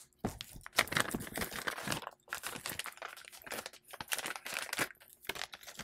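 Clear plastic bag crinkling and crackling in the hands as it is worked open, in irregular rustles that stop near the end.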